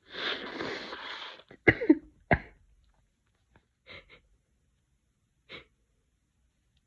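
A person with a cold breathing heavily between sneezes. A long breathy exhale is followed by two short, sharp bursts of breath about half a second apart, then a few faint short breaths.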